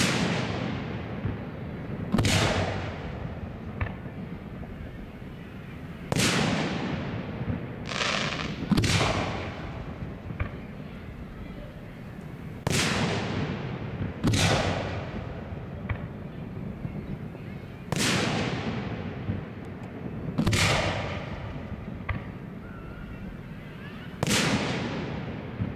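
Aerial firework shells bursting, about ten sharp booms spaced one to four seconds apart. Each boom trails off in a fading echo.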